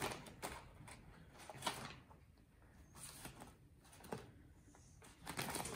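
Brown paper bag rustling and crinkling in short, irregular bursts as a cat paws and tugs at it.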